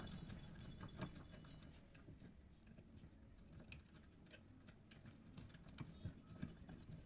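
Near silence broken by a few faint metal clicks and taps from fitting a bolt and washer into a washing machine's gearbox pulley: one about a second in, one in the middle and two close together near the end.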